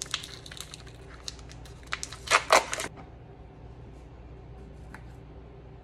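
Vacuum-sealed plastic sausage package being peeled and torn open by hand: crackling and tearing of the plastic film over the first three seconds, loudest about two and a half seconds in. Afterwards only a faint tap is heard.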